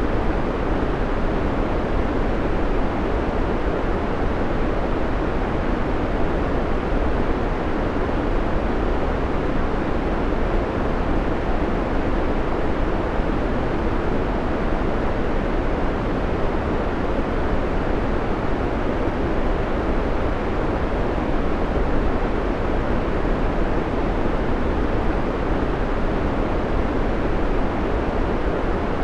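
Steady, unchanging white noise: an even rushing hiss, fuller in the lower range than a sharp hiss, with no breaks or changes.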